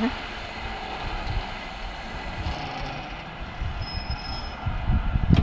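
Express train on an electrified main line running away into the distance: a steady rumble and rail noise that slowly fades, with a few low thumps near the end.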